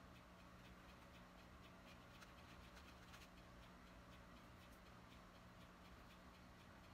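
Near silence: a faint steady electrical hum under soft, irregular little ticks.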